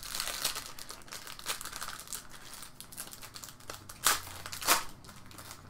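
Foil wrapper of a Panini Playoff football card pack crinkling as it is torn open by hand, with many small crackles and two sharper ones about four and a half seconds in.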